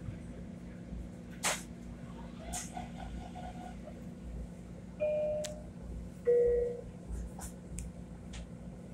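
A two-note descending chime sounds about five seconds in, typical of a Long Island Rail Road car's door-closing warning, over the steady hum of the train car's equipment. A single sharp click comes about one and a half seconds in.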